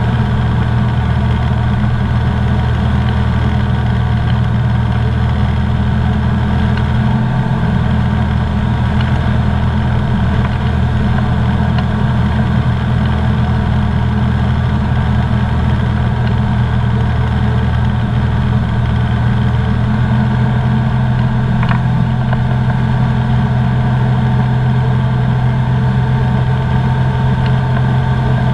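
Comco Ikarus C42B ultralight's engine and propeller running steadily in flight, heard from inside the cockpit. The drone's low note shifts slightly about twenty seconds in.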